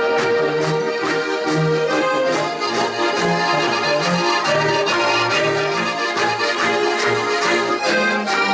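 Several Styrian button accordions (Steirische Harmonika) playing a folk tune together, sustained chords over a bass line that steps on a steady beat.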